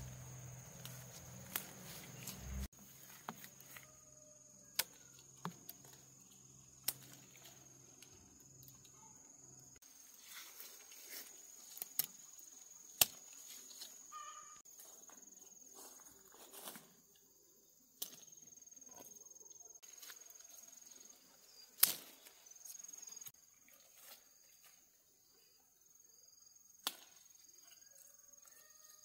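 Outdoor ambience: a steady high-pitched insect drone, broken by scattered sharp knocks and clicks, two of them much louder than the rest.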